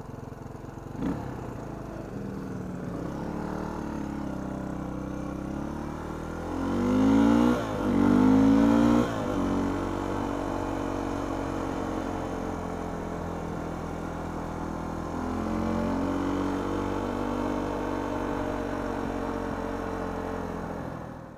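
1993 Suzuki DR350's single-cylinder four-stroke engine idling, then revving up hard twice about seven seconds in as the bike pulls away, before settling into steady running with a smaller rise in revs later on.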